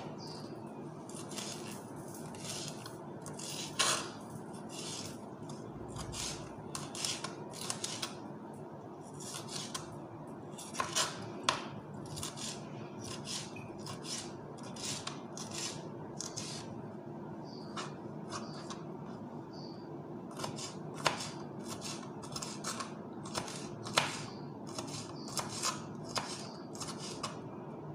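Kitchen knife slicing and dicing a green bell pepper on a cutting board: irregular light taps of the blade against the board several times a second, with a few louder knocks, over a steady low hum.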